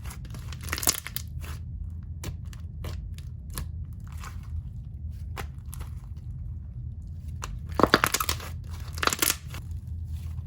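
Hands squeezing and stretching a chewy slime packed with soft foam pieces and beads, giving a run of small crackles and clicks. Louder crunchy squishes come about a second in and twice near the end.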